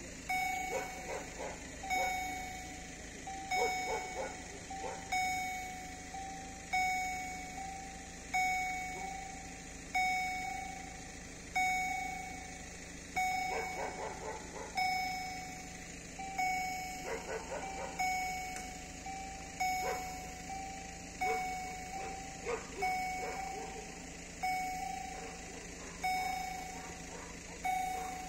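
Level-crossing warning bell, an electronic EHL sounder, repeating a short ringing tone over and over at an even pace while the crossing is closed to road traffic for an approaching train.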